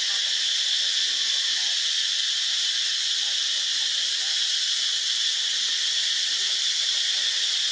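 A steady, high-pitched insect chorus hissing without a break from the forest canopy.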